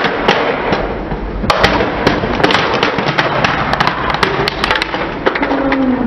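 Plastic crocodile-dentist toy cracking and snapping as a car tyre rolls over and crushes it, a dense run of sharp cracks, with a short squeak near the end.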